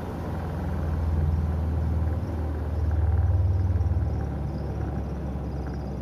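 Spin tub of an LG semi-automatic top-load washing machine coasting down after being switched off, a steady low rumble that grows louder about three seconds in and then eases. Its spin brake is broken, so the balanced tub freewheels to a stop on its own.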